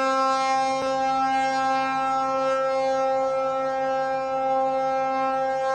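A ship's horn sounding one long, steady blast at a single unchanging pitch with many overtones.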